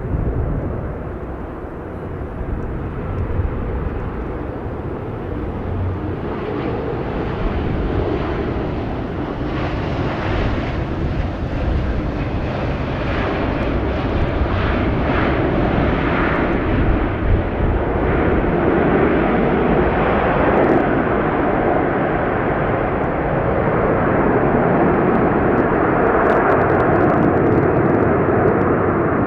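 Boeing 787-9 airliner landing: a steady rush of jet engine and airflow noise that grows gradually louder.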